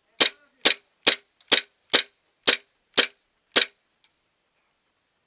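Airsoft gun firing single shots: eight sharp cracks at about two a second, stopping about three and a half seconds in.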